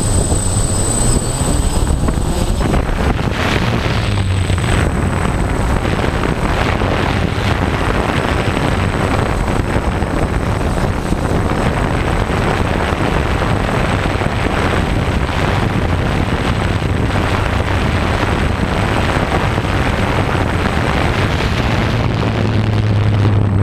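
Six motors and propellers of a DJI F550 hexacopter running loud, heard close up through its onboard camera, with the noise thickening a few seconds in as it lifts off from the grass and flies.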